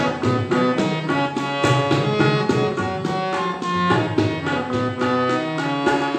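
Instrumental music interlude between sung verses: a melody instrument playing held notes over a steady, even drum beat.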